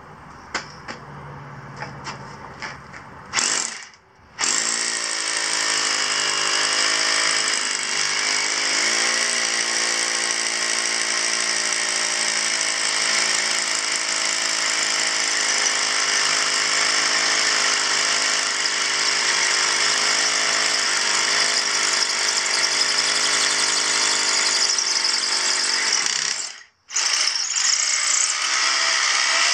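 Corded hammer drill boring a hole into a concrete slab: a few light knocks, a short start about three seconds in, then a long steady run of motor and hammering. It stops briefly near the end and starts again.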